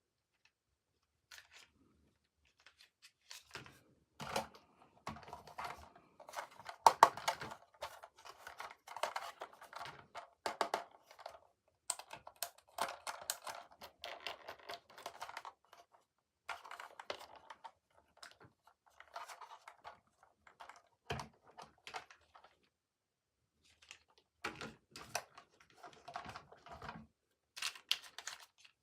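Toy packaging being opened and handled by hand: irregular tearing, crinkling and clicking, in spurts with short pauses between, and a sharper knock about two-thirds of the way through.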